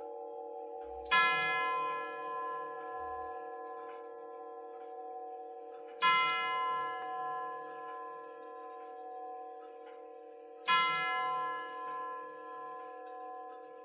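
Herschede nine-tube grandfather clock striking on one of its tubular bells: three identical strikes about five seconds apart, each ringing on and slowly fading, with earlier strikes still humming underneath. The slow, even repetition of one tone is typical of the clock counting out the hour.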